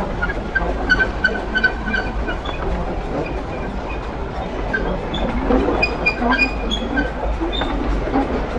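O&K-built two-foot gauge steam locomotive running along the line, heard from the cab, with a steady rumble and wheels clattering over the rail joints. Short high squeaks come in quick runs, most about a second in and again about two thirds of the way through.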